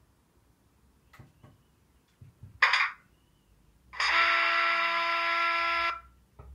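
Sound chip in a Bachmann model of the prototype Deltic diesel locomotive, playing through its small speaker. A few faint clicks come first, then a short loud burst of hiss about two and a half seconds in. After that, a steady tone with hiss runs for about two seconds and cuts off suddenly.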